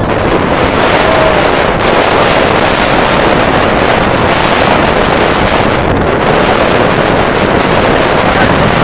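Wind buffeting the microphone aboard a sailboat heeled under sail: a loud, steady rush, with water rushing past the hull beneath it.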